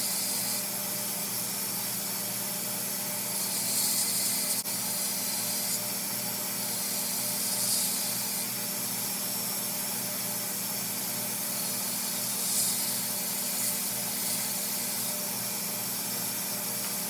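Belt grinder running steadily, with a hiss of steel being ground that swells several times as the cable Damascus knife blade is pressed to the belt.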